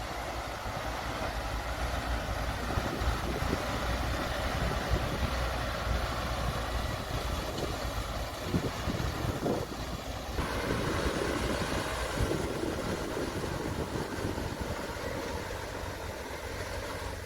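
Heavy diesel engines of excavators and a bulldozer running steadily, with a few brief knocks. The sound changes abruptly about ten seconds in.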